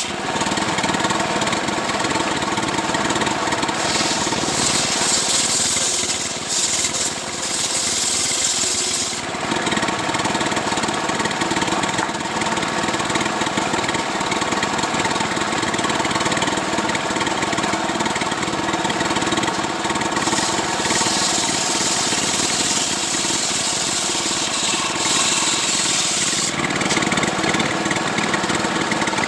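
Stihl chainsaw running at high revs while ripping a coconut palm trunk into a beam. Its tone shifts a few times as the load on the chain changes.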